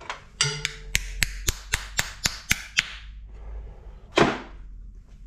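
A hammer tapping a new square drive into the head of a Snap-on breaker bar, about ten quick metal-on-metal taps at roughly four a second, seating its sprung ball bearing in the housing. A short scrape follows a little after four seconds in.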